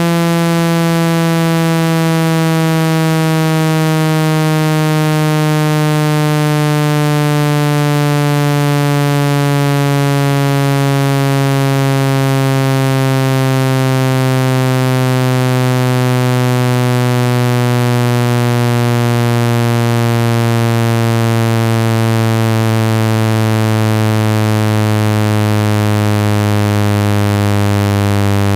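A loud, buzzy electronic tone, a speaker-cleaning tone meant to shake water and dust out of a phone speaker. It slides slowly and steadily down in pitch.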